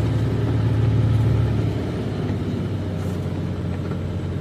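Semi-truck's diesel engine running steadily from inside the cab with the engine brake holding the truck back on a long downgrade under a heavy load. The sound eases slightly a little before halfway through.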